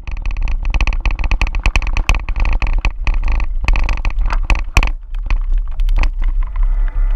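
Mountain bike riding over a rough, stony dirt track, picked up by a camera riding along with it: a dense clatter of rattles and knocks from the bike over stones and ruts, with wind rumbling on the microphone. The rattling thins out briefly about five seconds in.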